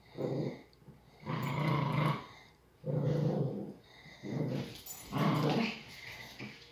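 Dogs growling in play during a tug-of-war over a rope toy, in five rough growls of about half a second to a second each.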